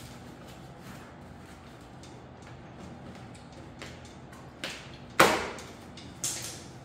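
Packaging wrap being handled and pulled off a new bike: faint rustling and ticks, then a few short, sharp rustles near the end, the loudest about five seconds in.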